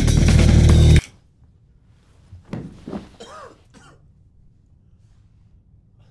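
Loud drum-driven music that cuts off suddenly about a second in. After a short pause, a man lets out pained coughs and groans for about a second and a half.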